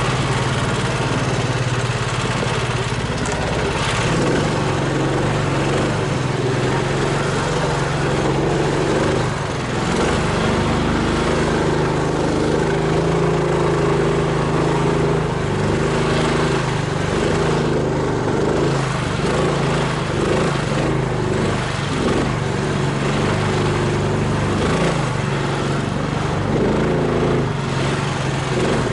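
Engine of a homemade karakat, an all-terrain vehicle on low-pressure tyres, running steadily as it drives, its note rising slightly about four seconds in.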